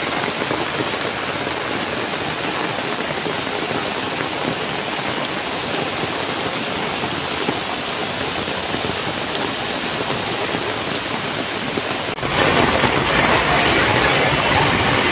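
Heavy rain and rushing floodwater on a street, a steady hiss of falling rain and running water. About twelve seconds in it cuts abruptly to a louder, brighter rush of rain.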